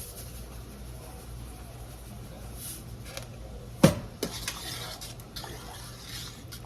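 A metal spoon stirring a pot of chicken and dumpling stew, scraping against the pot, with one sharp knock about four seconds in. A low steady hum runs underneath.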